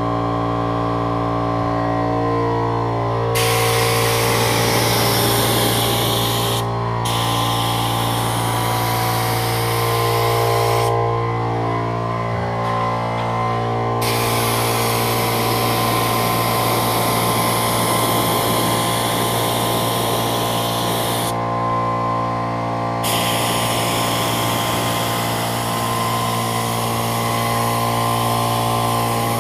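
A small air compressor running steadily throughout, with a cup-fed paint spray gun hissing as it sprays latex paint in long spells. The hiss starts about three seconds in, breaks off for a moment near seven seconds, stops for about three seconds around eleven seconds and again around twenty-one seconds, then runs on.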